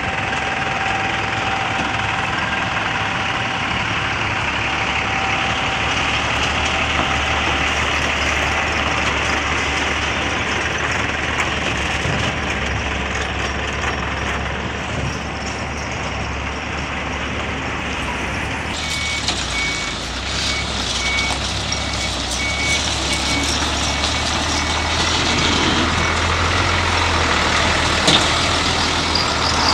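Hino FG8J truck's turbo-intercooled diesel engine running with a steady low drone. About two-thirds of the way in, a high electronic beep starts repeating quickly and goes on for several seconds.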